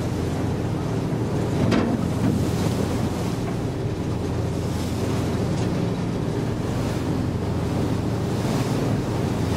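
Wind buffeting the microphone on the open deck of a moving ship, over the steady low drone of the ship's engine and the rush of the sea along the hull.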